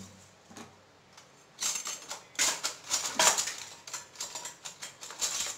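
Stainless-steel kitchen vessels and a steel spoon clinking and clattering: a few single clicks, then from about a second and a half in a quick, uneven run of metal knocks.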